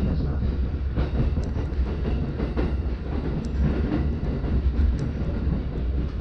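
Commuter electric train running, heard from inside the carriage: a steady low rumble from the wheels and running gear, with a few faint clicks.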